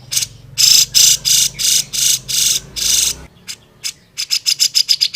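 Grey-cheeked bulbul (cucak jenggot) singing hard: a run of about six harsh, buzzy notes over two and a half seconds, then a fast series of short, sharp chips near the end.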